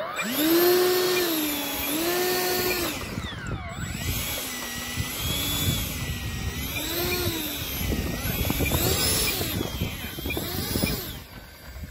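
12-blade 70 mm electric ducted fan on a 2150 kV motor and 6S battery, whining hard: it spools up at the start, then its pitch falls and rises again several times with the throttle. It fades somewhat near the end.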